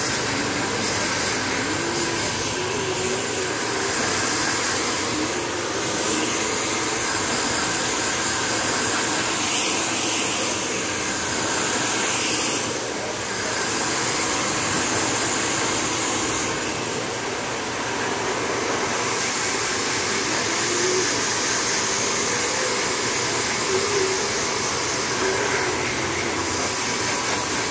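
Handheld hair dryer running steadily, blowing air through long hair; its level dips slightly now and then as it is moved around the head.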